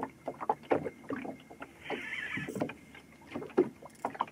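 Sea water slapping and lapping irregularly against the hull of a small boat, with a brief rasping hiss about two seconds in.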